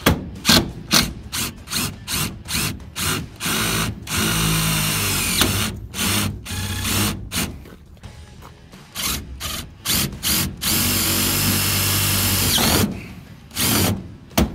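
DeWalt cordless impact driver driving screws through an RV window's frame into a bus's sheet-metal skin: many short trigger bursts, about two a second, and two longer runs of a couple of seconds that each wind down with a falling whine.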